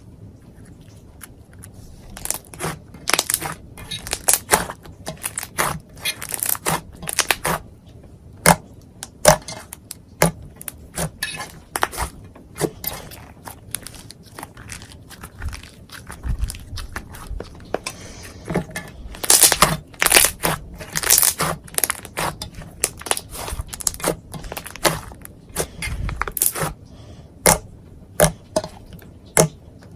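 Fingers poking, stretching and pressing soft white slime, giving irregular sticky clicks and pops, dense in clusters, as air pockets in the slime burst.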